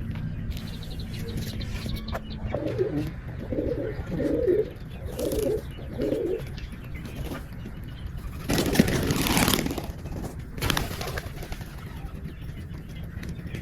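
Pigeons cooing: a run of about five low coos. Partway through, a loud rustling burst.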